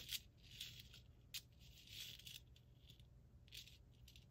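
A light click, then faint, brief rustles and scrapes from a gold chain necklace being handled.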